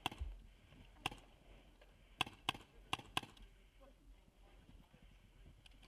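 Paintball markers firing: about six sharp single pops, one at the start, one about a second in, and a quick run of four between two and three seconds in.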